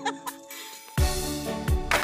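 Background music: soft held tones for about a second, then a fuller section comes in with a steady drum beat.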